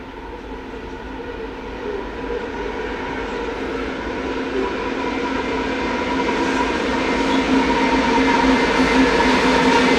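Two QR National diesel-electric locomotives hauling a loaded coal train approach, their engines droning steadily and growing louder as they come closer.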